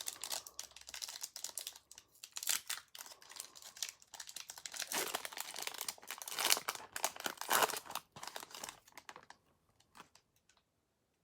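Foil Pokémon booster pack wrapper crinkling as it is torn open, a dense crackle that fades out about two seconds before the end.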